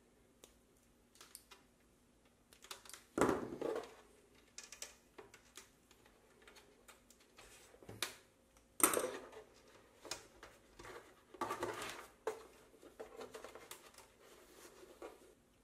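Hands working wires and small hand tools against a plastic housing: scattered small clicks, taps and rustles, with a few louder bursts of handling noise.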